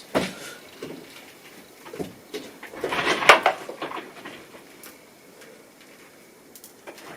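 Handling noises: a knock at the start, another about two seconds in, and a louder clatter of knocks around three seconds in.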